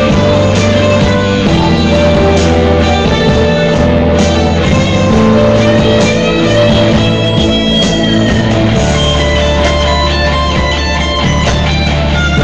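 Guitar-driven rock jam playing loudly and continuously, with sustained low notes under the guitar.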